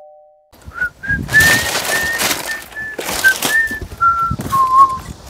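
A man whistling a tune, a string of short clear notes that ends on a lower held note. Under it are rustling and a few sharp knocks as parcels are moved about in a delivery truck's cargo box.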